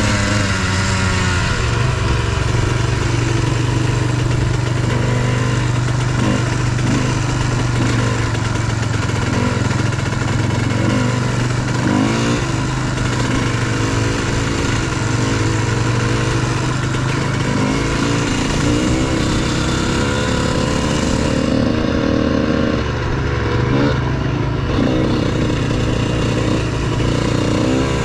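Dirt bike engines running on the move, the engine note rising and falling repeatedly with the throttle, over a steady rush of wind and gravel-tyre noise.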